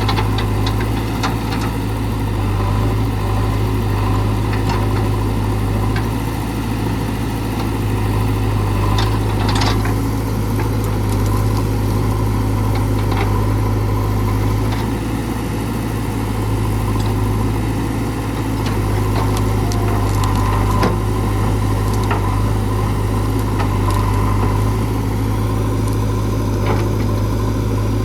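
JCB 3DX backhoe loader's diesel engine running steadily at a constant pitch, with a few light knocks and clicks over it.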